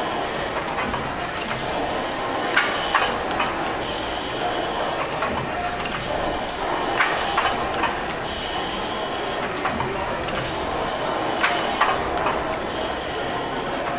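Victorian 1885 Gimson steam beam engines running together with a steady mechanical noise. Their valve gear gives sharp clicks in pairs, a pair about every four and a half seconds, in time with the engines' slow strokes.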